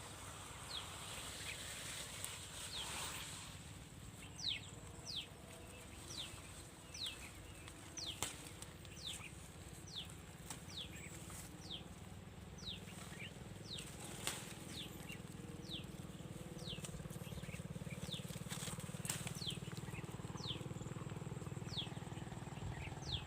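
A bird calling over and over: short, high chirps that slide downward, about one a second, over a low steady hum.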